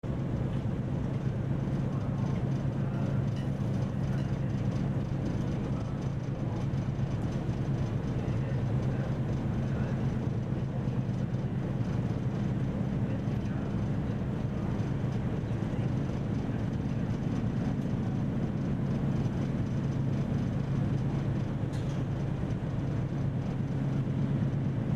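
Steady low hum of a ferry's engines and onboard machinery, heard from inside a passenger lounge.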